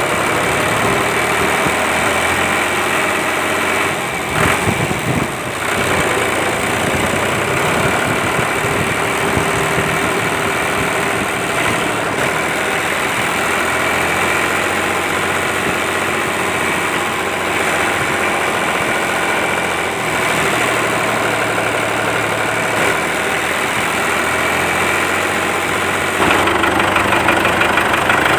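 Small electric motor and gears of a homemade toy tractor running steadily under load, its wheels spinning in mud while it pulls an overloaded brick trailer. Near the end a second, louder toy-tractor motor joins with a fast rattle.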